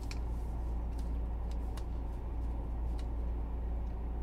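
A spoon clicking lightly a few times against a cup of cornmeal mix, over a steady low hum.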